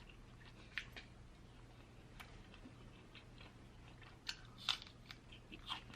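A person chewing crunchy food close to the microphone: faint wet chewing with scattered small crunches, a few louder ones a little past the middle.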